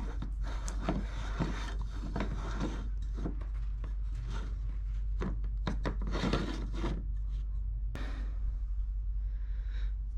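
ABS shower drain's locknut being screwed on by hand against its gaskets: irregular rubbing and scraping of plastic on plastic, with small clicks and knocks.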